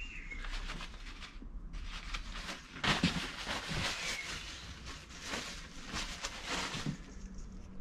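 Plastic bags and paper towel being shifted and rustled on a workbench, with small handling knocks, loudest about three seconds in and again toward the end.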